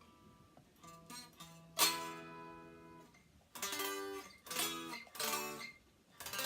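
Fender Player Telecaster electric guitar played unplugged: a few picked notes, then several strummed chords, each ringing out and fading. The first chord, about two seconds in, is the loudest.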